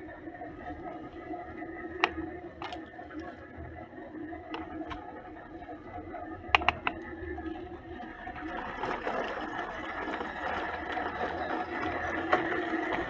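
Small electric motor of a toy construction vehicle running with a steady whine, with several sharp clicks; the noise grows rougher and louder in the last few seconds.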